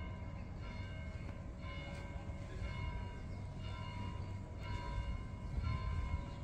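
Church bells ringing, struck about once a second, each stroke ringing on before the next, over a low rumble.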